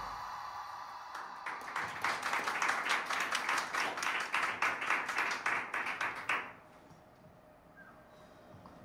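Small audience clapping, starting about a second in and stopping abruptly about five seconds later.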